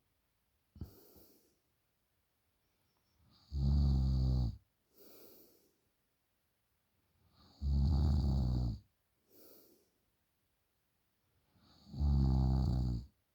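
A person snoring in deep sleep: three loud snores about four seconds apart, each lasting about a second, with a softer, shorter breath after each. A short, sharp breath sounds near the start.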